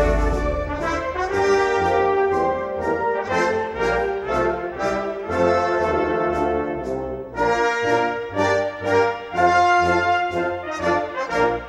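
Brass band playing festival march music, with trombones and trumpets carrying the melody over a pulsing drum beat.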